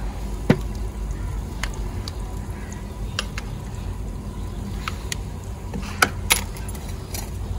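A kitchen knife cutting a tomato, tapping irregularly against the cutting surface, with the sharpest clicks about half a second in and around six seconds in, over a steady low rumble.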